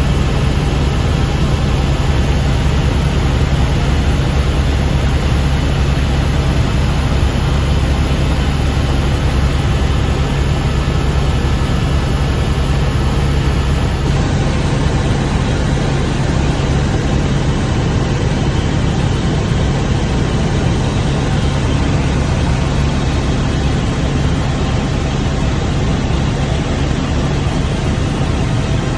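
Helicopter in flight: a steady, loud drone of engine and rotor noise with a strong low hum.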